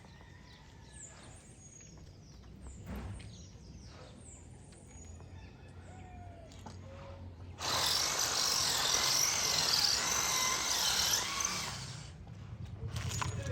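A power tool running in one burst of about four seconds, starting a little past halfway, its whine wavering in pitch as it speeds and slows. Before it, faint clicks and knocks.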